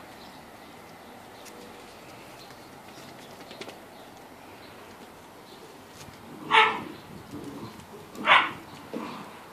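Great Dane puppies at play, giving two short, loud barks about two seconds apart, the first about two-thirds of the way in and the second near the end.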